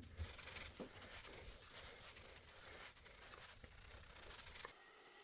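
Faint, soft rubbing hiss of a cloth or paper towel being wiped over a textured PEI 3D-printer build plate with isopropyl alcohol, with a few light ticks; it cuts off abruptly near the end.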